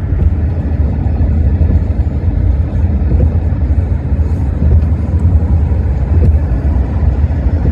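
Steady low rumble of a car driving at road speed, heard from inside the moving car: tyre and road noise with the engine underneath.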